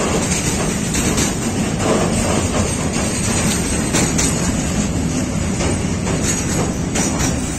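Freight train of sliding-wall covered wagons rolling past: a steady rumble of steel wheels on rail, with irregular clicks as the wheels cross rail joints.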